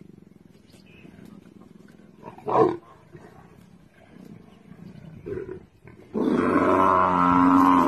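Lions growling low over a downed buffalo, with a short loud snarl about two and a half seconds in and a loud, drawn-out cry from about six seconds in.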